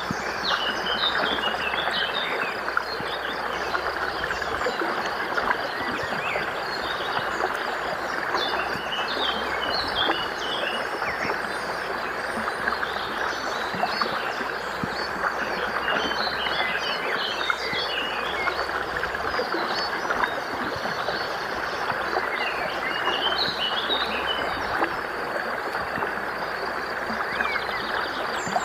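Water running steadily in a stream, with birds chirping in short clusters every several seconds.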